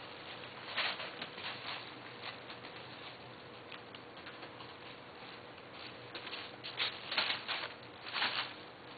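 Kittens rustling and crinkling tissue paper and wrapping paper as they play, in irregular bursts, the loudest near the end.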